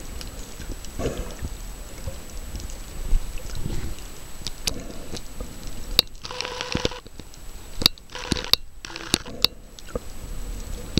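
Muffled underwater noise picked up by a camera held below the surface, with soft swells. From about halfway through come several sharp clicks and two short stretches of brighter hiss.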